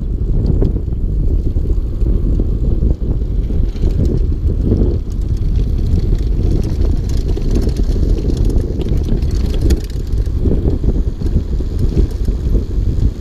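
Mountain bike rolling down a rutted dirt fire road, with a steady low rumble of wind and trail vibration on a bike-mounted camera, and scattered clicks and knocks from the bike over bumps.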